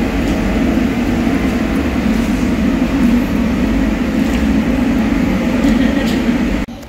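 Steady low rumbling background noise that cuts off abruptly near the end.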